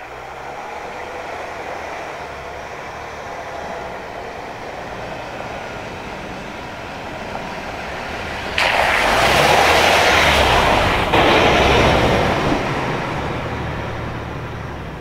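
Jeep Grand Cherokee driving slowly past on a sandy dirt track. Its engine hum builds as it approaches. About nine seconds in, a sudden loud rush of tyre and road noise comes as it passes close by, then fades as it drives away.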